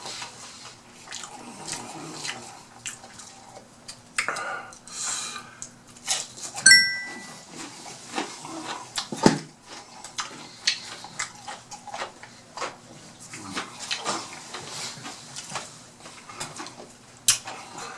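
Close-miked eating: chewing and wet mouth clicks and smacks while eating fried fish. About seven seconds in there is a short, high squeak, the loudest sound.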